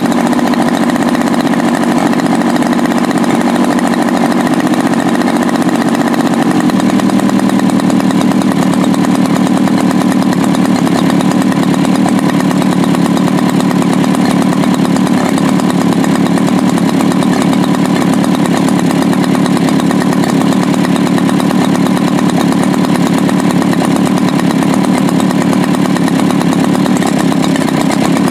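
Sachs Dolmar 61cc single-cylinder two-stroke engine on a large RC model plane running steadily with its propeller turning, its speed stepping up slightly about six seconds in. It is one of the engine's first runs, with the carburettor being adjusted.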